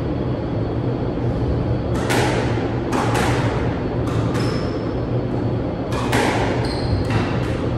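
Squash rally: a hard rubber squash ball cracking off rackets and the court walls, about five sharp hits with an echoing tail, the first about two seconds in and the rest in pairs near the middle and end. Short high squeaks of court shoes on the wooden floor come between the shots, over a steady low hum.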